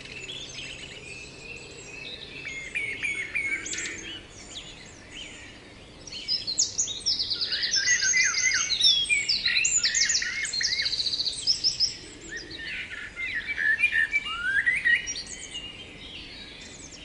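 Several small birds chirping and singing together, with quick trills of rapidly repeated notes about halfway through.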